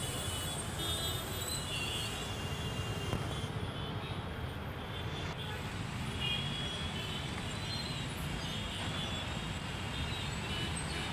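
Steady noise of heavy, slow-moving city traffic: engines and tyres of cars, buses and motorbikes blending into one continuous sound.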